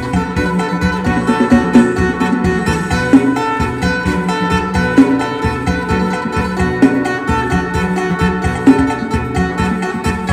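Isan phin, the Thai plucked lute, playing a fast lam sing melody in quick picked notes over a steady backing beat.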